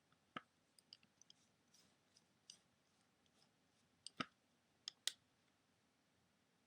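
Faint scattered clicks and light taps from handling a toy sonic screwdriver while a tip is fitted back into it, with the sharpest clicks about four and five seconds in.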